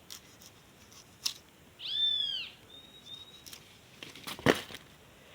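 A single high, arched animal cry, rising then falling, about two seconds in, with a few light knocks and a sharper knock near the end.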